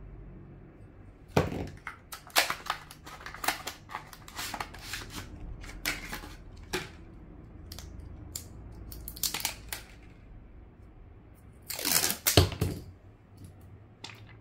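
Plastic backing film of replacement-battery adhesive strips being peeled and handled: crinkling and tearing in a run of short crackles, with a louder burst near the end.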